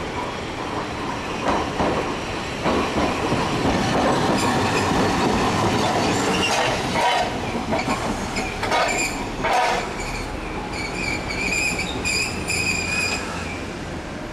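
Iyotetsu 50-series tram running slowly into the terminal stop, its wheels clacking several times over the rail joints and points. About ten seconds in, a high-pitched squeal sets in for a few seconds as the tram slows toward its stop.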